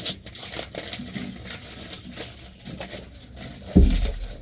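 Hand-tool work on a heavy armoured power cable: repeated short scrapes and crinkles of the plastic sheath being stripped, then one heavy low thump near the end.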